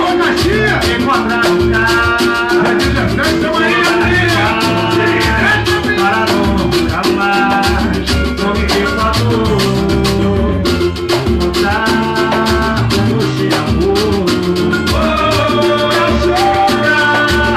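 A band playing upbeat Brazilian-style music: busy percussion with shakers and drums over a steady bass, with melodic lines on top.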